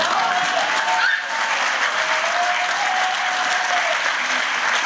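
Audience applauding steadily, with a few voices calling out over the clapping.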